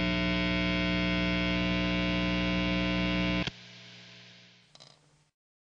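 Amplifier humming steadily with mains hum, then cutting off suddenly with a click about three and a half seconds in. A fainter hiss fades away over the next second, with a couple of faint ticks near the end.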